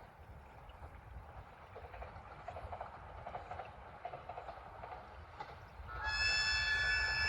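JR East E721-series electric train sounding its warning horn about six seconds in: a sudden, steady chord of high tones, the required warning at an unguarded level crossing marked with a whistle sign. Before it, only a faint low rumble.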